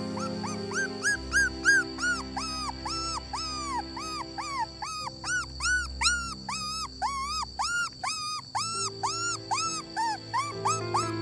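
Dog whining and crying in a fast run of short high whimpers, each rising and falling, about three a second. Background music with held chords underneath.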